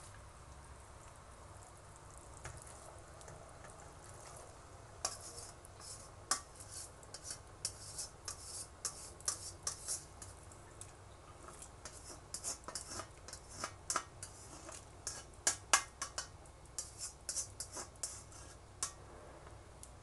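A spoon scraping and knocking against a stainless steel mesh strainer and pot as tapioca pearls are tipped into the pot and stirred: irregular clicks and scrapes, a few each second, starting about a quarter of the way in and stopping shortly before the end.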